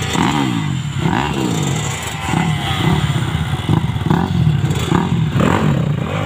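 Motocross bike engines revving at the start line, blipped up and down in pitch over and over, with more than one bike running at once.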